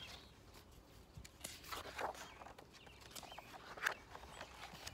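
Pages of a hardcover picture book being turned and handled: a few soft paper rustles and flips, the sharpest about four seconds in.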